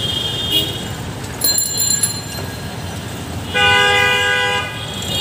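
A vehicle horn sounds once, loud and steady for about a second, near the end, over a constant hum of street traffic. A brief high-pitched tone comes about a second and a half in.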